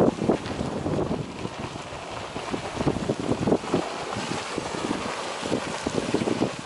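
Wind buffeting the microphone in uneven gusts over a steady rushing hiss, the splashing of an erupting geyser.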